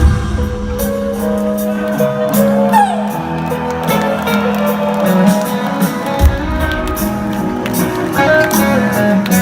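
Rock band playing live, with guitar prominent over a steady beat.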